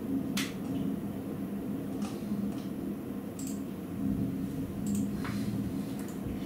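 Heavy rain falling in a steady rush, with single drops ticking sharply close to the microphone about once a second.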